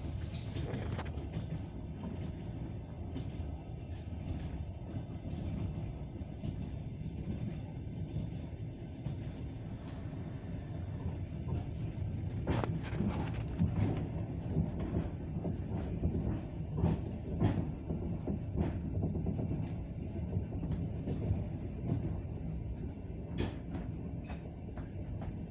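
Passenger train running on the rails, heard from inside the carriage: a steady low rumble with occasional sharp clacks of the wheels, clustered around the middle and again near the end.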